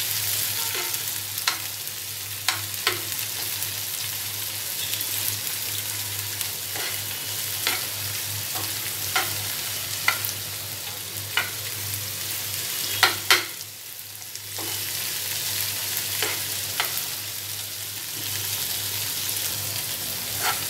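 Chopped spring onions sizzling in oil in a non-stick frying pan as they are sautéed. A spoon clicks and scrapes against the pan every second or so. The sizzle dips briefly about two-thirds of the way through.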